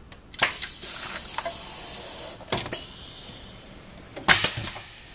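Pneumatic screen printer (MPS TF-100) venting compressed air as its print carriage cycles. A steady hiss runs for about two seconds, a few sharp mechanical clicks follow, and a second, shorter burst of hiss starts near the end and fades.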